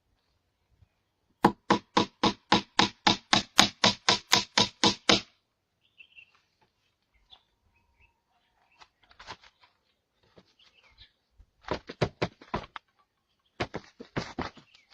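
Rapid hammering on wood, about four blows a second in a steady run of some sixteen strikes, then a few softer knocks and two shorter bursts of blows later on.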